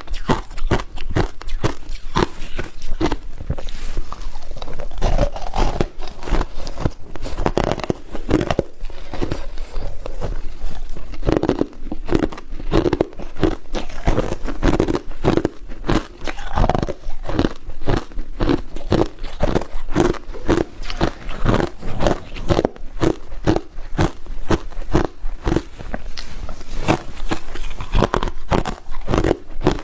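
Ice being bitten and chewed close to the microphone: a continuous run of sharp, rapid crunches, several a second.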